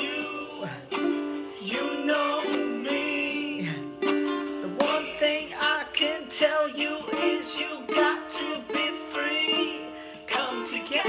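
A ukulele strummed in a steady rhythm while a woman sings along.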